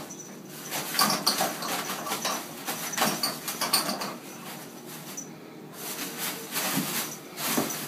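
Toilet paper rustling and crinkling in repeated short bursts as a kitten paws and pulls at it.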